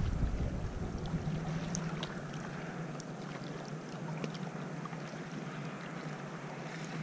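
Small waves lapping over pebbles at a lake's edge, with faint scattered ticks of trickling water.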